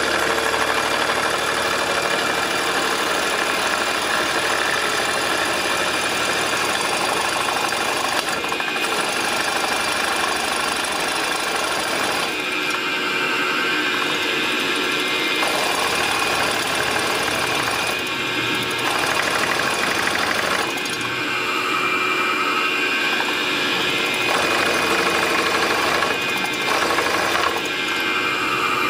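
Machine spindle turning a spot-facing cutter that is cutting down through the aluminium cooling fins of a BMW motorcycle cylinder head. It makes a steady cutting sound whose tone shifts every few seconds.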